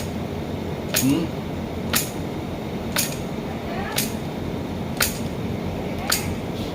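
Sharp, clinking taps of a hard object, evenly spaced about once a second, over a steady background hiss.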